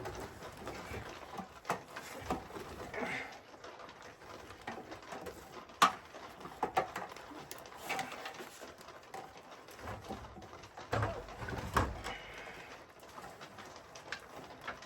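Scattered clicks and rustling as zip ties are fitted by hand around a flexible duct liner on a metal fitting, with a sharper click about six seconds in.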